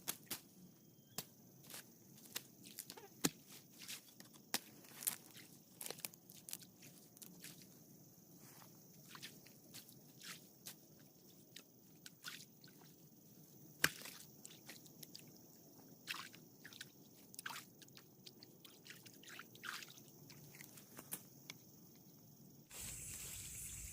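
Night insects chirring steadily, with many irregular sharp clicks and taps close by. Near the end a louder steady rushing noise comes in suddenly.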